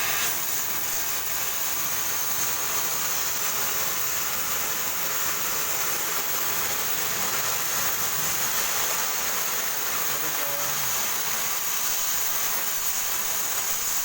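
Electric arc welding: a steady, even hissing sizzle of the welding arc burning along the joint.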